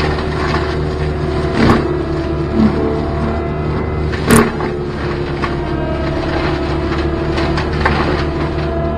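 Cat 289D3 compact track loader's diesel engine running steadily under load, driving a Gyrotrac hydraulic mulcher head, with sharp cracks of brush and wood being shredded about a second and a half in and again just after four seconds.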